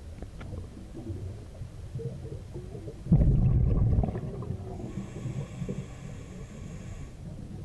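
Scuba diver breathing through a regulator underwater: a loud, low rush of exhaled bubbles about three seconds in, lasting about a second, then a fainter, even hiss of the next breath drawn through the regulator.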